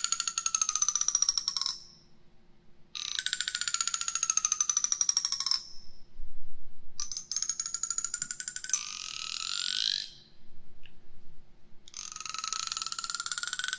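Teeth of a comb drawn slowly across a binaural microphone: a drawn-out rattle of rapid clicks with a high ringing tone, in four strokes of two to three seconds each with short pauses between.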